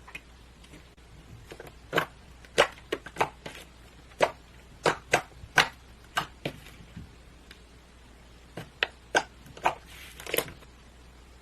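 A series of sharp, irregular clicks and pops, about sixteen in all, with a quiet gap about two-thirds of the way through.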